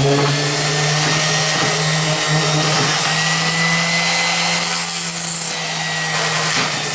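Small orbital sander with a 3M sanding disc running steadily over the wooden boards of an old ammo crate, a constant motor hum under the rasp of the disc on wood, knocking off surface dust and dirt.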